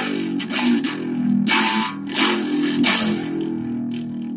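Down-tuned electric guitar with distortion playing a heavy metal riff: repeated chugging chords over ringing low notes, dying away near the end.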